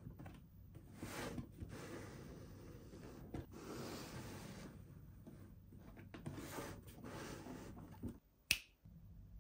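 Several soft swishing rustles, then one sharp snap near the end.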